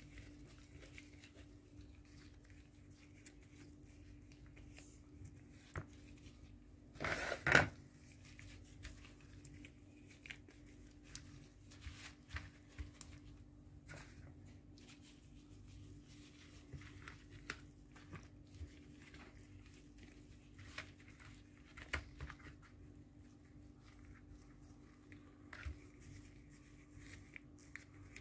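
Faint handling sounds of a gloved hand rubbing seasoning into pieces of raw hake on a tray: scattered soft clicks and rustles, with a louder rustle about seven seconds in. A steady low hum runs underneath.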